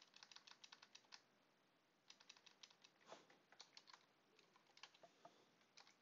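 Faint computer keyboard typing: quick runs of keystrokes broken by short pauses.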